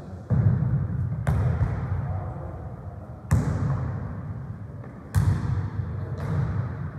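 A football being kicked and bouncing off the hall floor during a rally: about five sharp hits, each echoing through the large hall.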